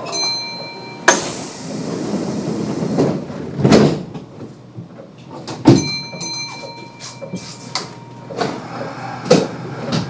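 Kintetsu 9200-series electric train standing at a station platform with its sliding passenger doors working: several sharp knocks of doors thudding shut. Short ringing tones come just after the start and again about six seconds in.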